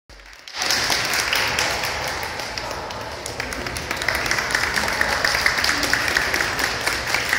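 Spectators applauding, a dense run of quick hand claps starting about half a second in and continuing steadily.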